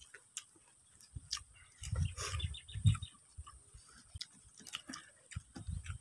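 Close-up mouth sounds of eating grilled pork ribs by hand: chewing, lip smacks and gnawing meat off the bone, as scattered soft clicks and short low bursts, loudest about two to three seconds in.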